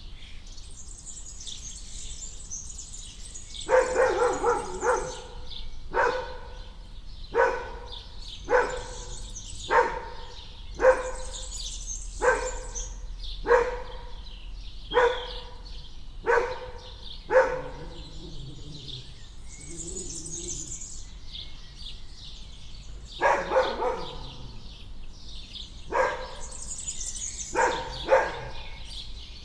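A dog barks in a steady series, about one bark a second, then pauses and barks again several times near the end. Birds chirp in the background throughout.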